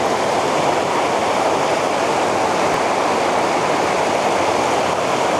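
Rocky river current rushing steadily over stones: a continuous, even rush of water with no breaks.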